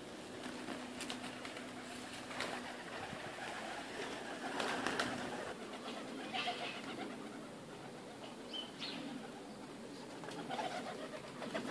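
A flock of white doves and pigeons flying down into a garden: flapping wings with a few sharp wing claps. The wings are loudest in a rush about five seconds in.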